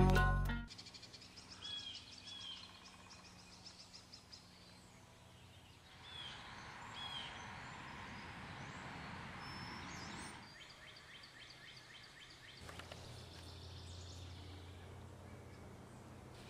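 Opening guitar music cuts off within the first second, leaving quiet woodland ambience with a few short bird calls and a patch of soft noise haze near the middle.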